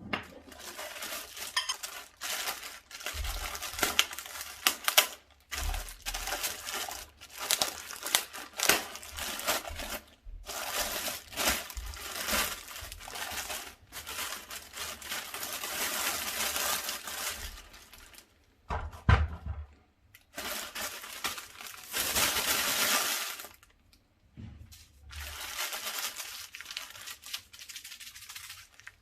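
Packaging being handled during unboxing: plastic wrap and bags crinkling and rustling, with small knocks and clinks as parts are moved. It comes in spells of a few seconds separated by brief pauses.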